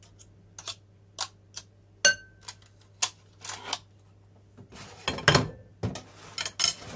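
Kitchen utensil clatter: a metal potato ricer clicking and tapping against a glass mixing bowl, with one ringing clink about two seconds in. A fork scrapes in the bowl, then a heavier clatter comes about five seconds in as the ricer is set down on a ceramic plate.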